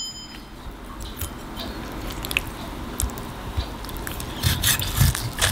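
Knife and fork cutting into a stuffed roast chicken thigh on a plate: soft cutting through the meat with scattered light clicks of the cutlery, several close together near the end.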